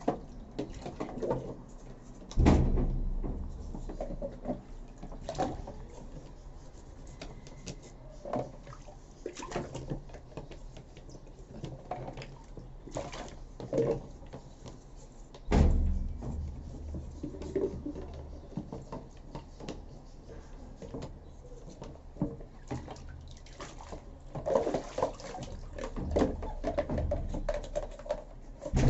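Washing machine parts being handled in a tub of water: scattered knocks and clatters with some water sloshing. Two heavier thumps come about two seconds in and about halfway through.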